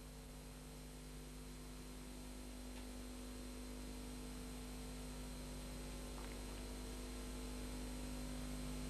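Steady electrical hum with an even hiss under it, slowly growing louder; no other sound stands out.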